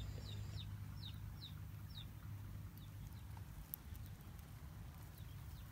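Bird chirping: about six short, high, falling chirps in quick succession during the first two seconds, then a few fainter ones, over a faint low rumble.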